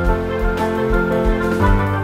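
Background music: an instrumental track of held notes over a steady low beat. The chord changes near the end.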